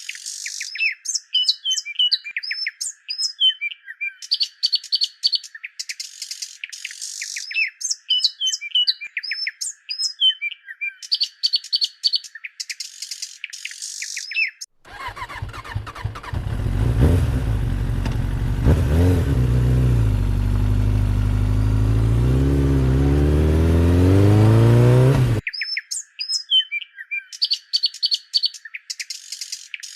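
Looped birdsong ambience, many chirps and tweets with no low end. About halfway through it gives way to an engine running and revving, its pitch dipping and rising, which cuts off suddenly after about ten seconds before the birdsong returns.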